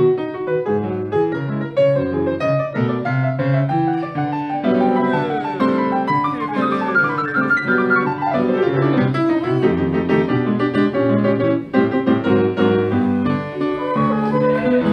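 Grand piano playing a busy, fast-moving solo passage in a Brazilian-style piece. Two flutes come in near the end.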